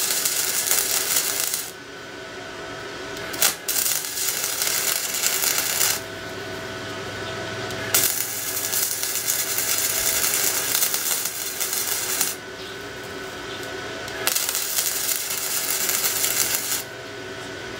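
Flux-core MIG welding arc from a Powerhouse 3-in-1 inverter welder, crackling and spitting spatter in four runs of a few seconds each, with short pauses between them. A faint steady hum sits underneath.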